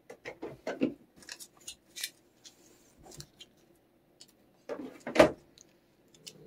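Hands handling small objects while a cat treat is got ready: light clicks, taps and rustling in several short clusters, the loudest a sharp clatter about five seconds in.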